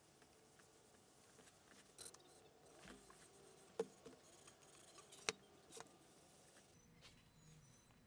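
Near silence, broken by a few light knocks and clicks as a wooden board is handled and turned over on a workbench; two sharper knocks stand out, about a second and a half apart.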